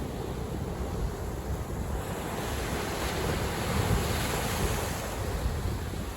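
Sea waves breaking against concrete tetrapod breakwater blocks. A wave surges in about two seconds in, peaks with a rushing wash around four seconds, then eases off, over a low rumble of wind on the microphone.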